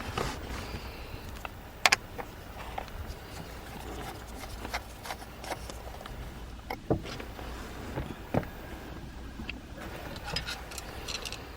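Scattered light clicks and taps of hand work on a plastic A/C blower control switch assembly, the sharpest about two seconds in, over a steady low hum.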